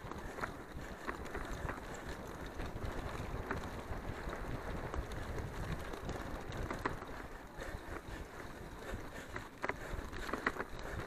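Mountain bike rolling fast over a bumpy dirt trail: steady tyre rumble with scattered knocks and rattles from the bumps, and wind buffeting the microphone.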